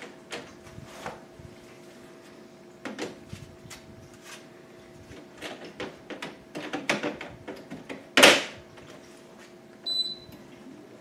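Plastic filter and front grille of a GE window air conditioner being slid and snapped back into place: a run of light clicks and rattles, with one loud snap about eight seconds in. A faint steady hum from the running unit lies underneath, and a single short electronic beep sounds near the end.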